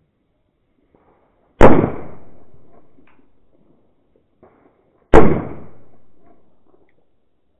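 Two loud firecracker bangs about three and a half seconds apart, each echoing and fading away over about a second and a half.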